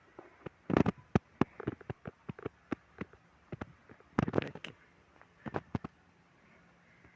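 Footsteps of a person walking up a steep slope, heard as irregular clicks and knocks two to three times a second. Two louder rustling bursts come about a second in and about four seconds in.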